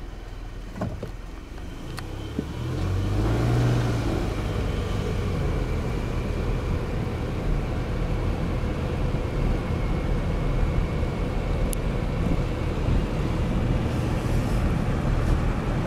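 A car pulls away about three seconds in, with a brief rise in engine pitch, then drives on steadily with a low engine and road rumble. A few faint clicks come just before it moves off.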